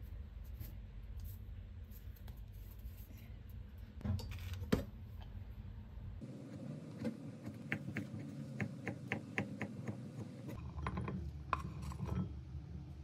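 A kitchen knife chopping dried sweet potato on a wooden cutting board: an even run of sharp knocks, about four a second, starting about halfway through, with a few more knocks and scrapes of the blade near the end. Before that, only soft handling as marshmallows are torn apart by hand.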